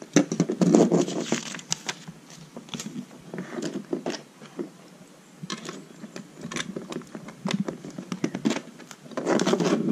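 Plastic Lego bricks and plates being handled and snapped together: scattered sharp clicks with light rattling and scraping, denser for a moment near the end.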